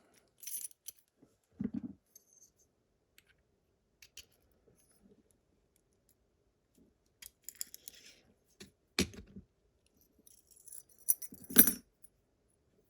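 Small metal parts of an Abus GDS pin-tumbler lock being handled while the lock is gutted: scattered light clicks and clinks, with two louder sharp clacks about nine seconds in and near the end.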